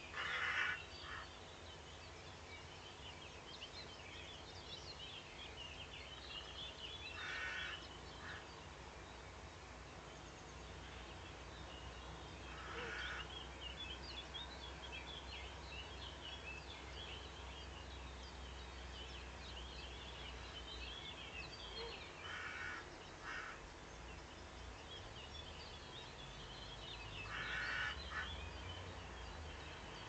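Corvids giving harsh, angry caws, singly or in quick pairs, every five seconds or so, over a steady chorus of small songbirds singing.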